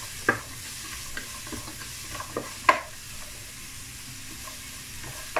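Diced beans, carrots and peas sizzling in hot oil in a kadai on high flame while a wooden spatula stirs them, knocking and scraping against the pan several times, loudest a little under three seconds in.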